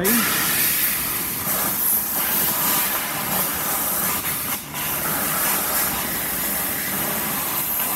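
Compressed-air blow gun hissing steadily as air is blown up the inside of a car windscreen to test its seal for leaks, with a brief dip about four and a half seconds in.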